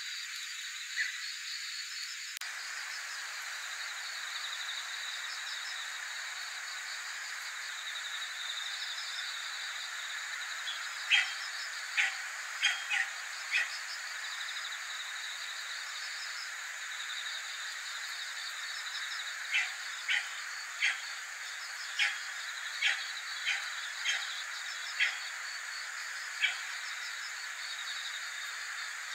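A steady chorus of insects chirping in pulsing trains. Over it come short, sharp chirps: five in quick succession about a third of the way in, and about ten more, spaced a second or so apart, in the later part.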